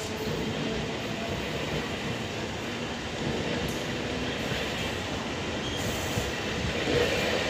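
Passenger train coaches rolling slowly past on the adjacent track: a steady rumble of steel wheels on the rails, with some wheel squeal and clicking over the rail joints.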